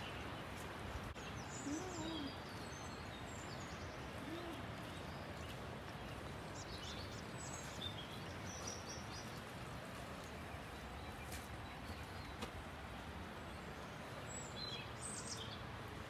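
Birds chirping and calling at intervals over steady outdoor background noise, with a few short high calls in bunches and two faint low calls in the first few seconds.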